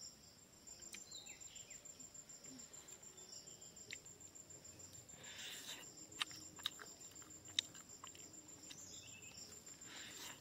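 Faint, steady high-pitched trill of a cricket pulsing without a break, with a few sharp clicks about six and seven seconds in.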